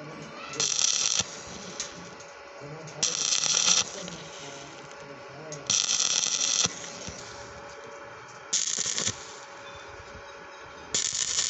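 Stick (arc) welding rod sizzling on a steel tube in five short bursts, each half a second to a second long, as the arc is struck and held briefly to lay tack welds.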